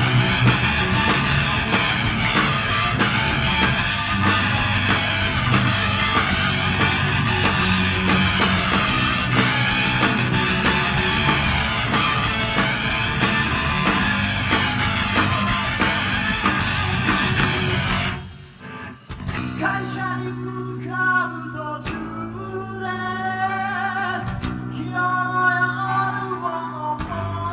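Live heavy metal band: distorted electric guitar, bass and drums playing loudly, with a sweeping guitar effect that repeats about every two seconds. About eighteen seconds in it breaks off for a moment and drops to a quieter passage where a voice carries the melody over the bass.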